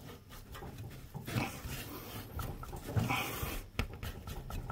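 A man grunting and breathing hard with effort, twice, while forcing a very tight spin-on oil filter round with a filter wrench, with a couple of light clicks near the end.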